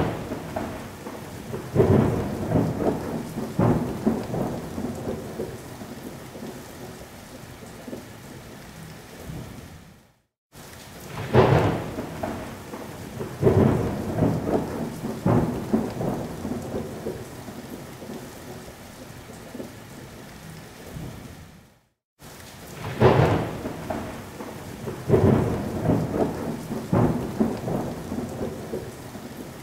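Thunderstorm recording: sharp thunder cracks and rolling rumbles over steady rain. A roughly 12-second clip repeats as a loop, with a brief silent gap between repeats, so the first crack returns about 11 and 23 seconds in.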